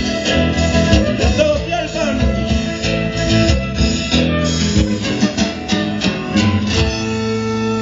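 Live band music with plucked strings and a steady beat; near the end the band settles onto a held closing chord.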